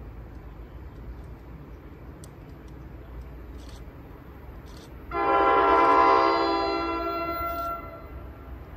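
A train horn sounding one long blast of nearly three seconds, steady in pitch, about five seconds in, over a low steady rumble.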